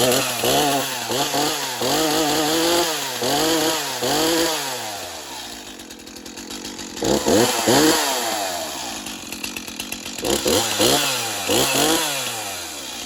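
Small two-stroke gas chainsaw revving in quick throttle blips, about five in a row, dropping back toward idle, then one longer rev and three more blips near the end.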